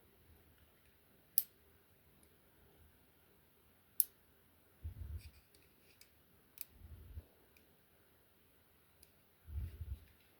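Small sharp clicks and dull low bumps of a tiny die-cast toy wheel and metal axle being handled and fitted by hand: two loud clicks about a second and a half and four seconds in, then a few soft knocks.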